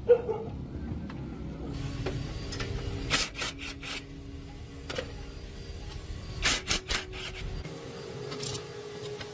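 Hand-tool work on truck wheel and axle parts: rubbing and scraping, with sharp clanks about three seconds in and again around six and a half to seven seconds in.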